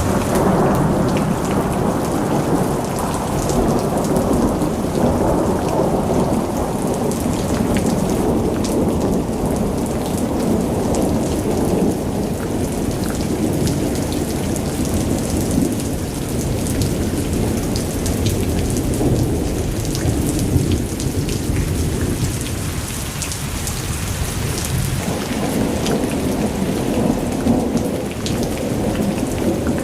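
Heavy rain falling steadily: a dense, deep rushing with a fine patter of drops on top, a little weaker in the middle and swelling again near the end.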